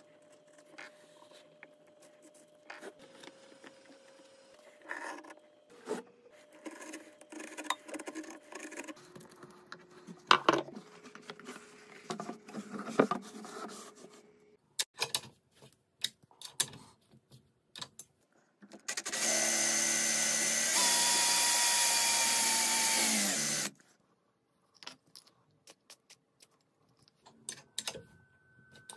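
Scattered handling clicks and scrapes of DIY work, then an electric power tool motor running for about five seconds about two-thirds of the way in, stepping in pitch and winding down as it stops; the motor is the loudest sound.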